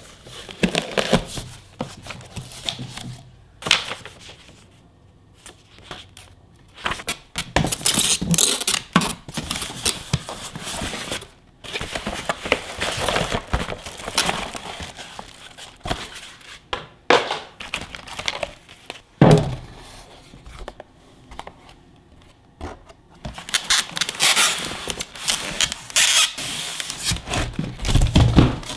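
Cardboard box being unpacked by hand: tape tearing, cardboard flaps scraping and rustling, and plastic wrapping crinkling as the packed machine with its foam end blocks is lifted out, in irregular bursts with a few short quiet gaps.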